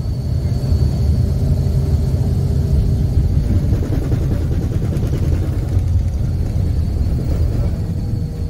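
Steady low rumble of road and wind noise from a moving vehicle, recorded on board as it travels at speed.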